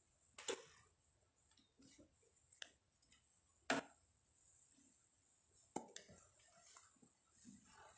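Handling noise from an acoustic guitar being picked up and its strap slipped over the player's head: a few scattered sharp clicks and knocks in otherwise quiet room tone.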